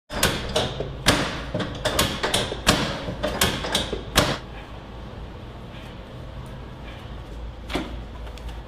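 A quick series of sharp cracks and pops, more than a dozen in about four seconds and then one more near the end: joints cracking under chiropractic adjustments.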